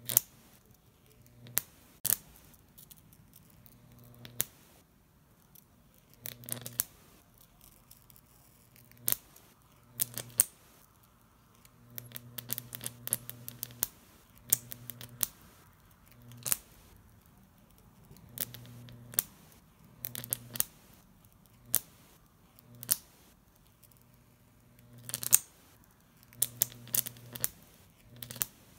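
Homemade Jacob's ladder's high-voltage arc between copper wires, driven by a MOSFET driver, crackling and snapping irregularly as it strikes and breaks. A low buzz comes and goes with each stretch of arcing.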